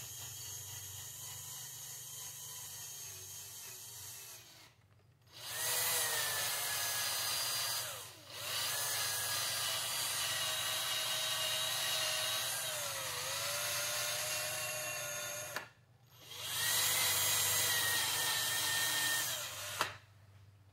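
Ryobi cordless drill spinning a buffing pad against a painted motorcycle helmet to polish out sanding scuffs. The motor whine starts and stops in four runs, rising in pitch as each run spins up and sagging briefly when the pad is pressed harder.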